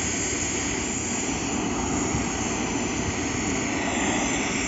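Gas welding torch flame hissing steadily as it heats a metal pipe adapter joint.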